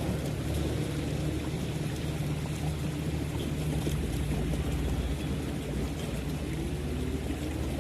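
A motor running steadily with a low hum, over a wash of outdoor noise.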